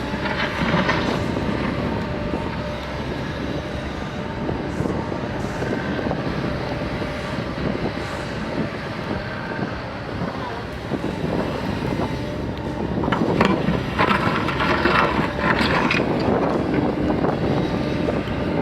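An engine running steadily, with indistinct voices in places.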